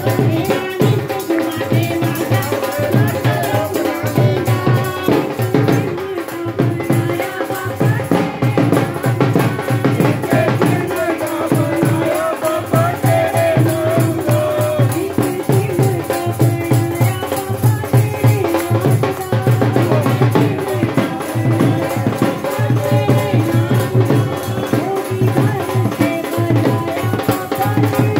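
Live devotional bhajan sung by women over amplified microphones, with a steady drum beat and jingling hand percussion keeping time.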